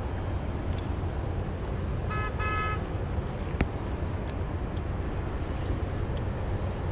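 Steady low rumble of wind and distant city traffic heard from high on a building, with a short horn toot from far below about two seconds in and a sharp click a second later.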